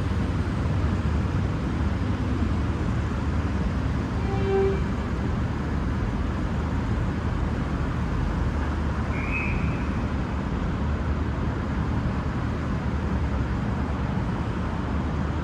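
V/Line VLocity diesel railcar idling at the platform: a steady low engine rumble. A short tone sounds about four seconds in, and a brief high beep about nine seconds in.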